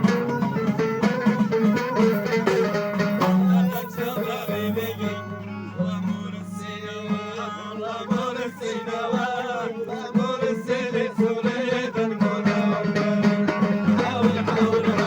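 Traditional folk music played live: a plucked string instrument with a steady hand-drum rhythm.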